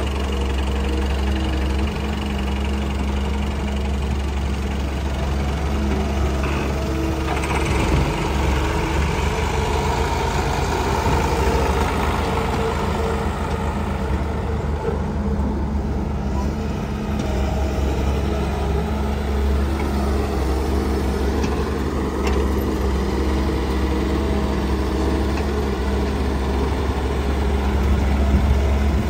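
Excavator's diesel engine running steadily at a constant speed, with a few faint knocks.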